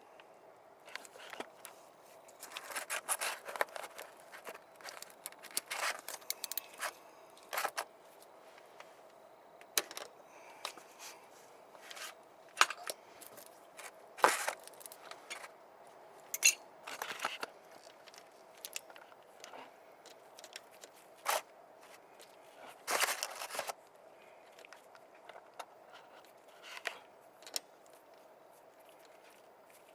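Metal tools and small parts clinking, rattling and scraping in irregular handling noises, with a faint steady hum underneath.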